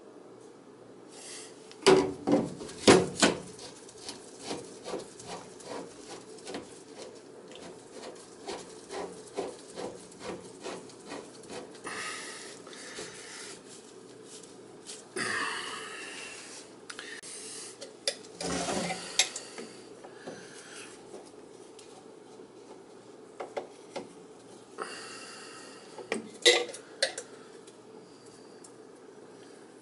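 Plastic drain fittings being handled and twisted onto a drain pipe. There are a few loud plastic clacks about two seconds in, then a run of light ticks, then stretches of rubbing and scraping as the fitting is worked onto the pipe. A few more clicks come near the end.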